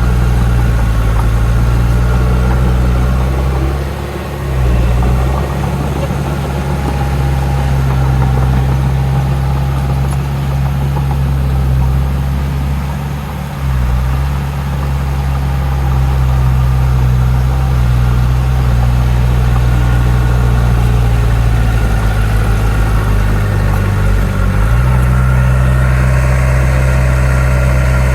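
Heavy diesel engine of an earthmoving machine running steadily under load. It dips briefly about four seconds in and again about thirteen seconds in, and shifts in pitch between about 22 and 25 seconds in.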